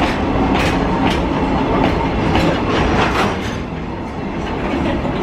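Chichibu Railway freight train rolling past, its wagon wheels clacking over rail joints over a steady rumble. The clacks stop about three and a half seconds in, and a quieter rumble carries on.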